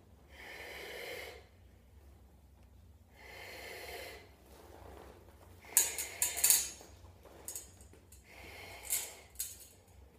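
A man breathing hard with effort: long, heavy breaths about every three seconds, then a cluster of loud, forceful exhales through the nose around six seconds in as he bears down on a hand conduit bender, and another heavy breath near the end.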